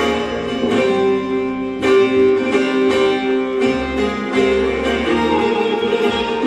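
Turkish folk ensemble playing an instrumental passage of a Denizli zeybek tune, led by plucked long-necked strings with held, ringing notes and a few sharp strokes.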